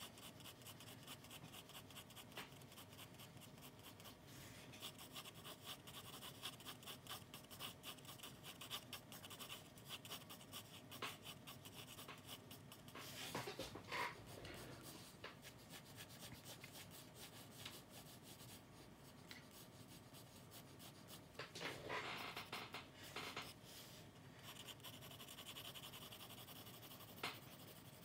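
Faint graphite pencil scratching on sketchbook paper in quick, short strokes, with two louder, longer stretches of strokes about halfway and two-thirds of the way through.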